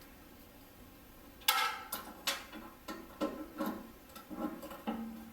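A series of light metal clicks and knocks, about two a second, starting about a second and a half in: the metal rotisserie spit being handled and fitted into the microwave oven's cavity.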